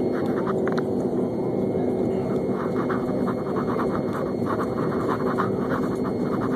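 Airliner engine and rolling noise heard inside the cabin while the plane moves along the runway: a steady rush with a low hum running through it.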